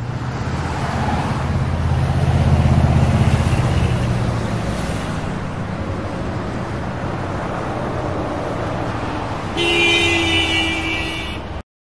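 Road vehicle engine running steadily amid traffic noise, swelling a little a few seconds in, then a car horn sounds one long honk near the end before the sound cuts off abruptly.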